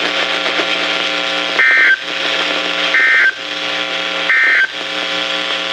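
Three short two-tone EAS/SAME data bursts, a little over a second apart, from a NOAA Weather Radio receiver's speaker: the end-of-message code that closes a National Weather Service alert broadcast. A steady electrical buzz from the radio runs under them.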